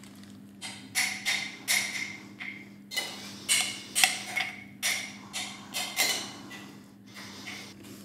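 A run of about a dozen sharp clacks and knocks, each with a brief ring, roughly two a second, made while the burger is being assembled. They stop about six seconds in.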